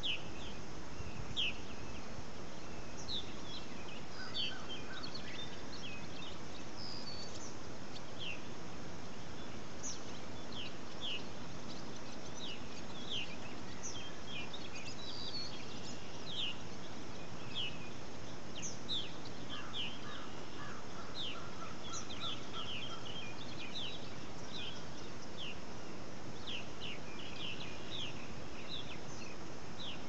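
Dawn chorus of several birds: many short, high, downward-sweeping chirps throughout, with a run of lower repeated notes around the middle, over a steady background hiss.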